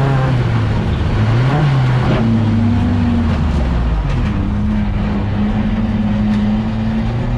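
Classic Saab 900's four-cylinder engine heard from inside its stripped race-car cabin. The revs rise briefly about one and a half seconds in, then drop and hold steady at a lower pitch for the rest of the time.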